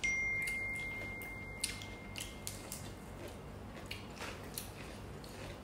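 A single clear ringing tone that starts sharply and fades away over about two seconds, amid scattered soft clicks and taps from people eating with their hands.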